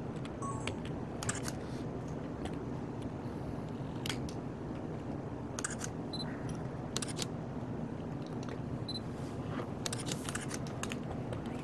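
DSLR camera shutters clicking, several cameras firing single shots at irregular moments, with a quick flurry about ten seconds in. A couple of short high beeps sound among the clicks, over a steady low room hum.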